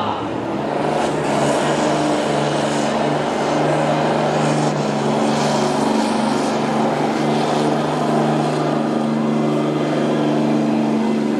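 Ram heavy-duty pickup's diesel engine pulling a weight-transfer sled under full load, a loud, steady drone held at one pitch from about a second in.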